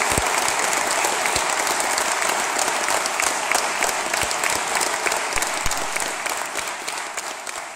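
Audience applauding: a steady, dense clapping of many hands that starts to fade away about six seconds in.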